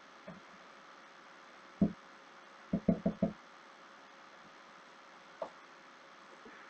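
Light knocks of hard plastic parts being handled: one knock about two seconds in, then four quick knocks in a row about a second later, over a faint hiss. They come from the 3D-printed mold and filled syringe being set up to start injecting.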